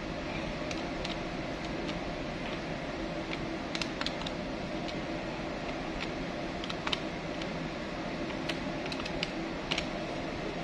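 Buttons of an electronic desk calculator being pressed: about fifteen light, irregularly spaced clicks as figures are entered to total a column, over a steady hum.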